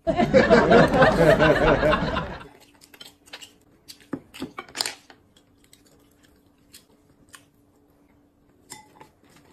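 A short, loud vocal sound in the first two seconds or so, then quiet eating sounds at a table: scattered light clicks and knocks of chopsticks and tableware, with a faint steady hum behind.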